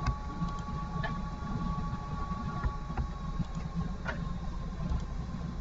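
Steady low hum of a computer or recording setup, with a few faint faint steady tones above it. A few soft computer-mouse clicks are heard, about a second in, near the middle and again a little past it.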